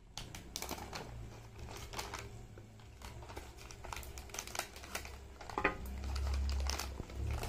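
Plastic snack packet crinkling as it is snipped open with scissors and handled, a scatter of small crackles and clicks.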